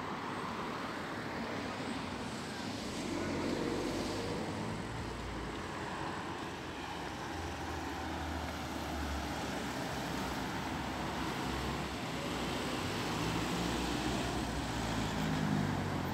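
Road traffic: cars driving along the street, a steady rumble of engines and tyres that swells a little twice.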